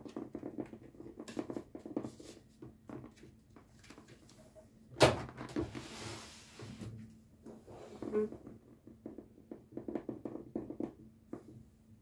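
Cockatiel pecking and tapping its beak on a hard plastic container lid: bursts of quick light taps, with one louder knock about five seconds in.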